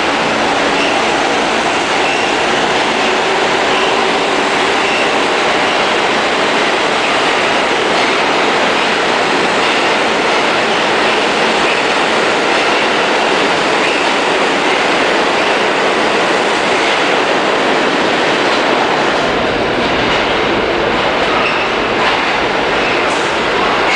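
New York City Subway trains running through an underground station on tracks on both sides of the platform: a loud, steady rumble of wheels on rail. About three-quarters of the way in, the sound turns deeper as an R train approaches the platform.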